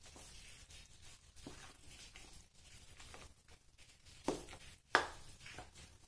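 A utensil stirring and scraping flour into a wet batter in a stainless steel bowl, with two sharp clinks against the bowl about half a second apart, two-thirds of the way through.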